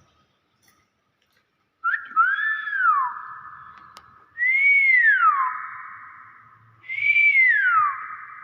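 Hill myna whistling three times, each call a swooping tone that rises and falls while a second steady note is held under it.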